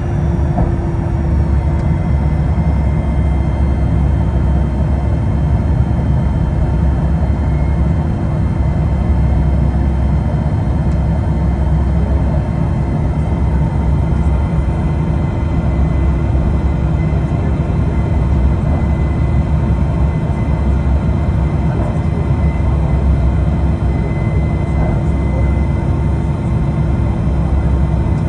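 Cabin noise of a Pilatus PC-24 business jet taxiing after landing. Its Williams FJ44 turbofans run at low power, giving a steady hum and a faint whine over a heavy low rumble.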